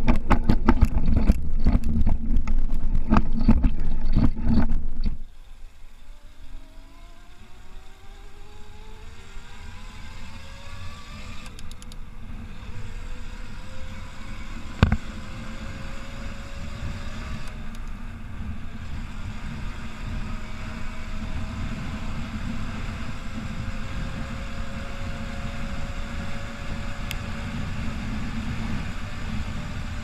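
Conway E-Rider electric mountain bike: for about five seconds the bike rattles and clatters as it rolls down stone steps. Then its electric motor whines, rising slowly in pitch as the bike speeds up to about 60 km/h, over a steady rush of tyre and wind noise, with a single sharp click partway through.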